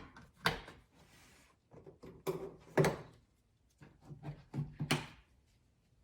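Plastic push-in trim clips being pressed by hand into a Toyota Camry trunk lid liner, giving a handful of separate sharp snaps and knocks a second or two apart, with a brief rustle of the liner between them.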